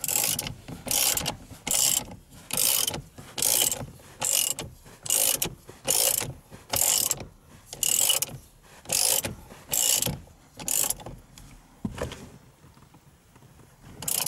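Hand ratchet wrench clicking in a steady rhythm, a short run of pawl clicks on each back-swing, about one stroke a second, as it runs down the steering wheel's centre bolt. The strokes stop about eleven seconds in, with a few lighter clicks and one last burst near the end.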